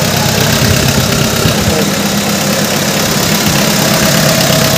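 Mitsubishi 4D56 four-cylinder diesel engine, freshly top-overhauled, idling steadily.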